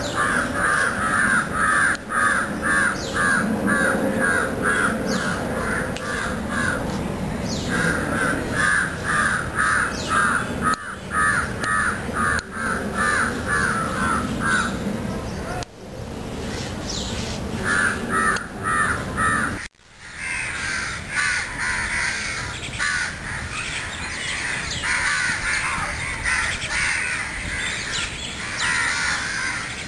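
Crows cawing in quick runs of repeated calls, then, after a brief break about two-thirds through, many crows calling over one another.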